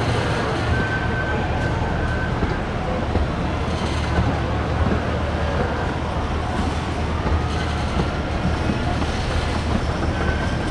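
Park ride train running steadily along its rails, a continuous low rumble and rattle.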